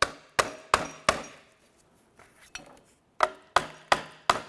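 Hammer tapping around the steel flange of a rear wheel hub, sharp ringing metal-on-metal strikes about three a second, working to break the hub free of the stuck backing plate. The strikes pause for about two seconds midway, with a couple of light taps, then resume.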